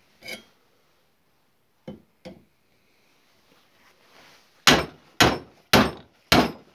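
A few light knocks, then steady hammer blows, about two a second, starting about two-thirds of the way in.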